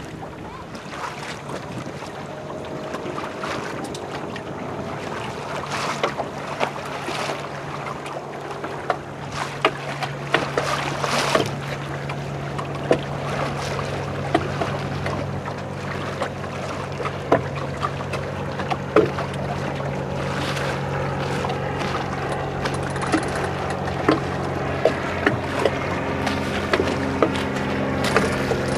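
Water slapping and splashing against a small boat's hull in a light chop, with wind on the microphone. A steady low hum runs underneath from about two seconds in.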